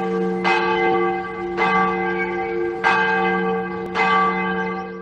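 Large bell tolling, struck four times, about one stroke every second and a quarter, each stroke ringing on into the next. The ringing dies away near the end.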